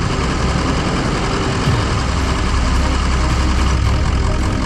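Heavy excavator diesel engine running steadily, a deep low rumble.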